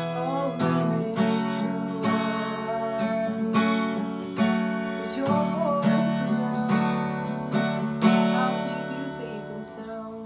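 Capoed acoustic guitar strummed in a steady rhythm under a voice singing a few slow phrases; the strumming gets quieter near the end.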